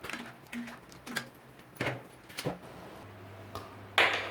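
Scattered knocks and clinks of kitchen utensils being handled, with a louder clatter about four seconds in. A low steady hum comes in near the end.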